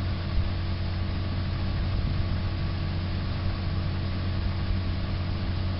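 Steady low hum with an even hiss, the sound of a running motor or appliance.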